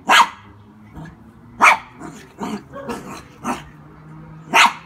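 Small dog barking in play, about six sharp barks, the loudest near the start, about a second and a half in, and near the end.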